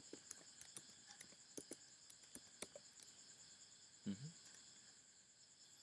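Near silence: faint, steady high chirring of crickets, with a few scattered soft clicks of keyboard typing.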